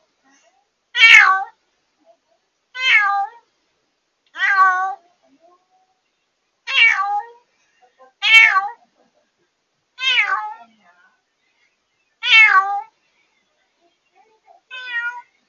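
A cat meowing loudly and repeatedly: eight short calls about two seconds apart. This is the nightly crying of a newly rescued former stray getting used to living indoors. The calls are loud enough to distort the pet monitoring camera's microphone.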